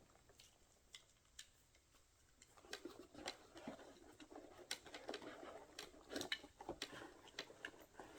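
Faint, scattered clicks, taps and light rustling of hand tools being handled and fitted into a tool bag's pockets, starting about two and a half seconds in.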